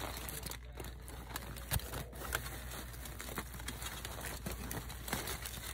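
Aluminium foil crinkling as it is handled, in irregular crackles.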